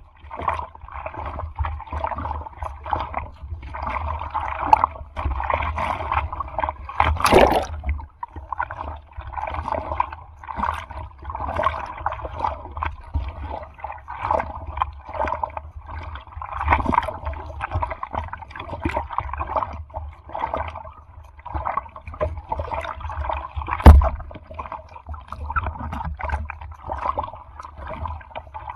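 Sea water sloshing and splashing close by in rough surf, a choppy stream of small splashes over a low rumble. A louder rush of water comes about a quarter of the way in, and a single sharp knock comes late on.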